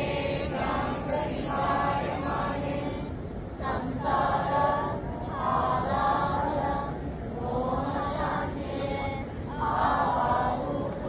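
A group of voices chanting in unison, in phrases one to two seconds long with short breaks between them: a yoga group's prayer chant.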